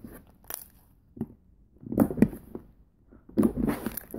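Pink homemade slime being squeezed and kneaded by hand, giving irregular wet squelches in several short bursts, the loudest about two seconds in and again in the last second.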